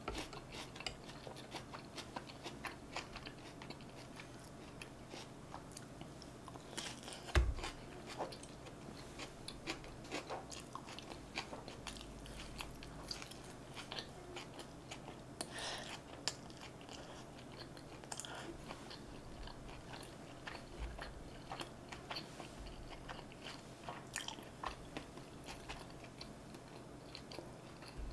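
Close-miked chewing and biting of North Korean tofu rice, fried tofu pockets stuffed with rice and sauce: soft wet mouth sounds with many small clicks. A single low thump about seven seconds in.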